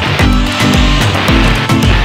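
Background music with a steady beat and deep, repeating bass notes.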